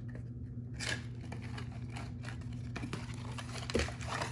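Smoke alarm box being opened and its contents handled: scattered light scrapes, rustles and clicks of cardboard and packaging, over a steady low hum.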